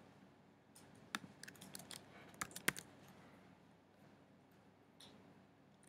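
Keystrokes on a computer keyboard: a quick run of about ten taps between one and three seconds in, then a single tap near the end. The keys are being pressed while a spreadsheet formula is typed.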